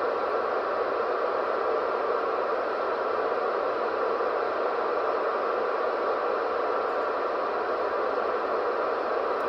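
CB radio static: a steady, even hiss from the radio's speaker, with no station coming through on the channel.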